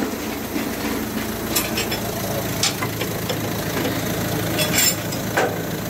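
A steady machine hum like an engine idling, with a few sharp metallic clinks over it, typical of tools working on the front steering during a wheel alignment.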